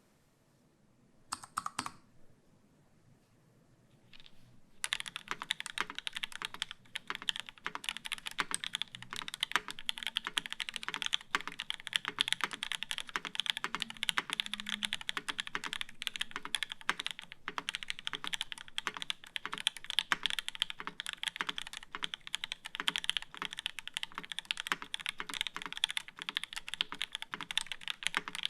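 UTD 360c mechanical keyboard with an aluminium plate, lubed H1 switches and GMK keycaps, typed on quickly and continuously from about five seconds in, after a couple of isolated key clacks.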